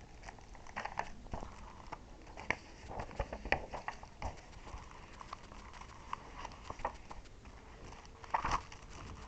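Paper and box contents being handled: scattered light rustles, taps and clicks at irregular intervals, as the grinder's manual and warranty papers are moved about.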